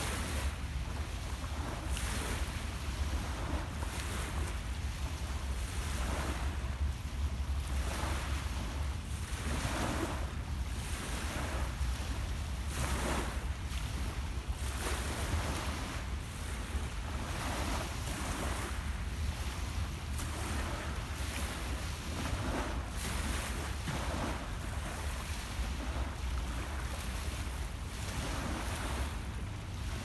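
Small lake waves lapping and breaking on the shore, a soft wash every second or two, over a steady low rumble of wind on the microphone.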